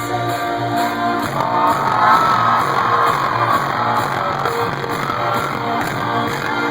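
Live rock band playing: guitars strumming over a steady, even beat, with wavering high notes drifting over the top about a second in.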